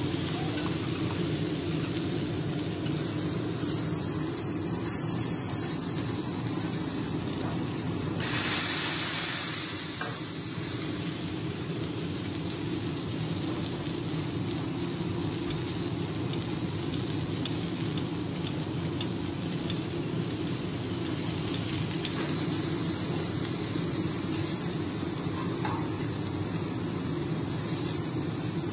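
Beef steak sizzling steadily on a hot teppanyaki iron griddle as it is sliced. About eight seconds in, a louder burst of hissing lasts roughly two seconds.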